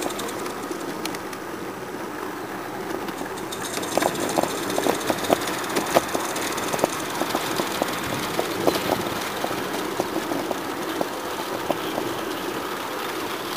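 Small live-steam garden-railway locomotive running: a steady hiss and chuff of steam, with irregular sharp clicks of wheels on the rails that begin about four seconds in.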